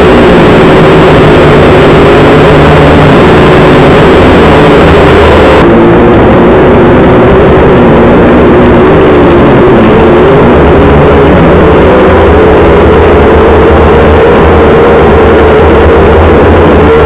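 Quadcopter's electric motors and propellers buzzing loudly in flight, picked up close by the onboard camera; the buzz holds steady with its pitch wavering slightly as the drone manoeuvres.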